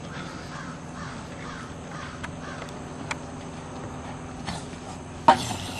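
A bird calling several times in a quick series, rising and falling, then a single sudden loud knock near the end.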